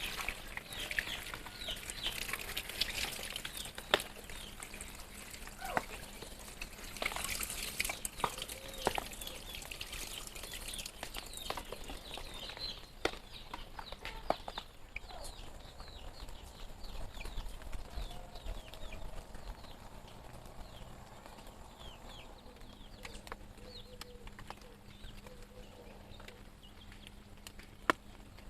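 Chickens clucking and chirping, busiest in the first half, with a few sharp clicks.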